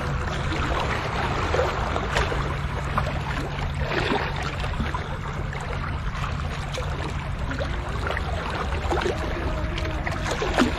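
Seawater lapping and splashing at the shore, over a steady low rumble of wind on the microphone, with scattered small clicks.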